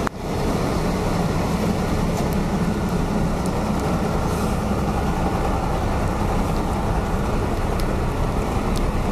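Steady rush of a swollen, fast-flowing mountain river in the rain, with a few faint ticks scattered through it.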